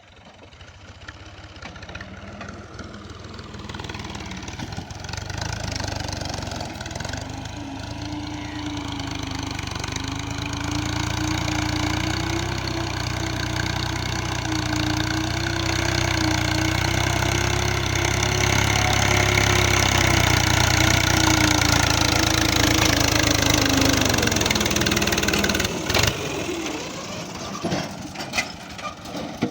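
Diesel engine of heavy earth-moving machinery running, growing louder over the first several seconds and then holding steady, its pitch wavering slightly. It eases off near the end, with a sharp knock just before.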